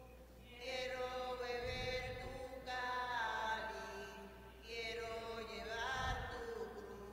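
Offertory hymn sung slowly, with long held notes that move from pitch to pitch.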